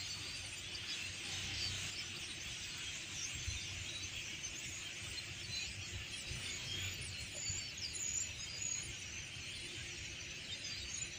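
A large flock of starlings calling all at once: a dense, steady chorus of overlapping high chirps and squeaks.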